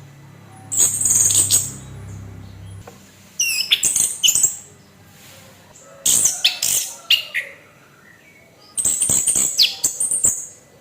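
Orange-headed thrush singing its harsh song in four loud phrases of rapid, high, squeaky notes, each about a second long, with short pauses between.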